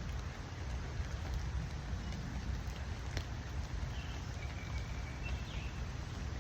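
Steady rain falling, with a low rumble underneath and a few faint drop ticks; a faint high call is heard briefly about four to five seconds in.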